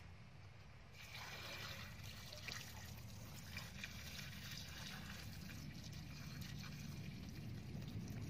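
A stream of brown liquid poured from above into a wide steel wok of whole fish, starting about a second in and running on steadily as the liquid splashes over the fish and fills the pan.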